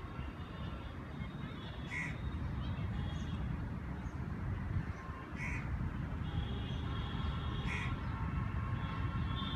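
Crows cawing, with single short caws every two to three seconds over a steady low background rumble.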